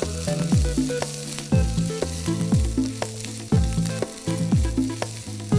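Sliced onions and ginger-garlic paste sizzling in a hot frying pan as a wooden spatula stirs them. Under it runs background music with a steady beat of falling-pitch drum hits about once a second.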